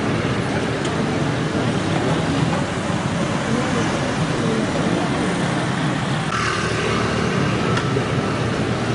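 Steady vehicle noise, a continuous rumble with no clear speech; a faint higher whine joins about six seconds in.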